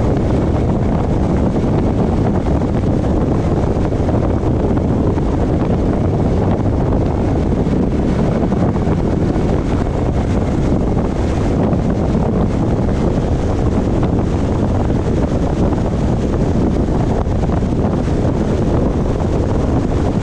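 Steady wind rush on the microphone over the low rumble of a car driving along the road.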